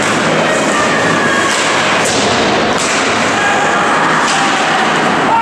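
Ice hockey in play: skate blades scraping on the ice and sticks and puck cracking against each other and the boards, several sharp hits over a steady loud rink noise.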